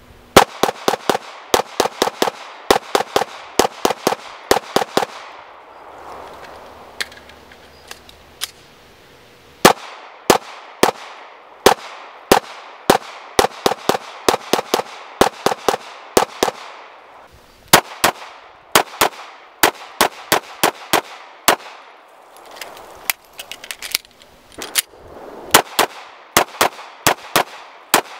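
A 9mm Glock 26 compact pistol fired in fast strings of shots, several a second, with short pauses between the strings.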